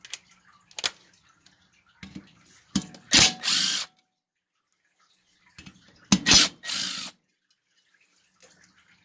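Power ratchet run in two short bursts, a few seconds apart, backing bolts out of a plate on a small engine.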